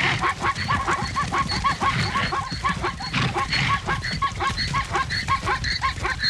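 Plains zebras giving repeated barking alarm calls, several short yelps a second overlapping from many animals, over the low drumming of the fleeing herd's hooves.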